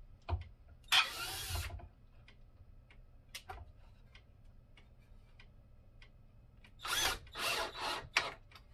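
Cordless drill running in short bursts: one run of under a second about a second in, then three quick runs near the end, with scattered small clicks in between.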